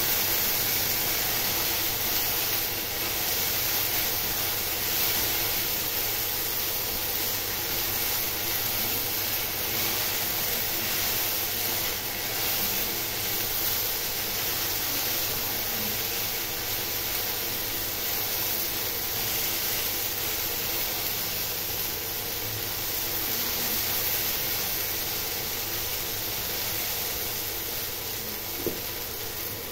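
Okra frying in oil in a nonstick pan: a steady sizzling hiss as the pieces are stir-fried, with one light knock near the end.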